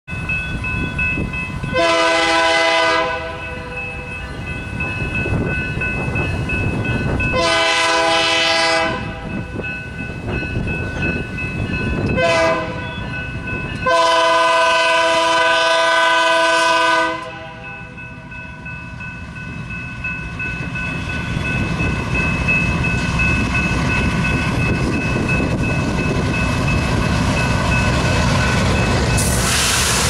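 Air horn of a lead GE diesel freight locomotive sounding the grade-crossing signal: two long blasts, a short one, then a long one, as a multi-note chord. After that the locomotives' diesel engines and the train on the rails grow steadily louder as the train draws near and passes.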